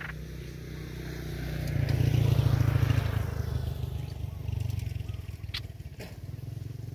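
An engine passing by: its low hum and rushing noise swell to their loudest about two to three seconds in, then fade, over a steady low drone. Two light clicks come near the end.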